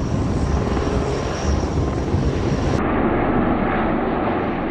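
Bell Boeing V-22 Osprey tiltrotor in flight, its two big proprotors and turboshaft engines giving a loud, deep, rapidly pulsing rotor throb. About three seconds in, the sound changes abruptly to a different pass with less throb and more engine rush.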